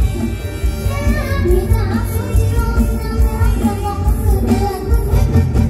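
Live mor lam music: a young girl's singing voice over a band with a heavy, steady bass, heard through a loud concert sound system.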